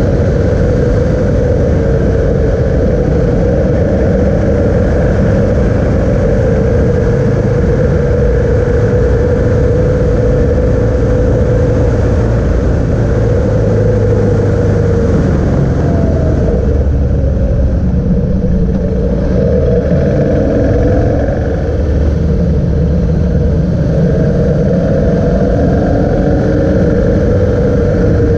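Motorcycle engine running at steady cruising revs, with heavy wind rush on the microphone. A little past halfway the engine pitch drops, then climbs again in a few rising sweeps as it pulls back up to speed.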